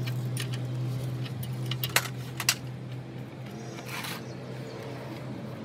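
Metal tools and parts clinking as they are handled, with sharp clinks about two seconds in and again half a second later, over a steady low hum.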